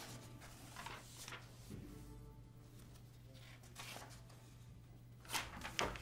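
Paper rustling as the pages of an old typescript are turned by hand: a few short, soft rustles, the two loudest near the end, over a faint steady hum.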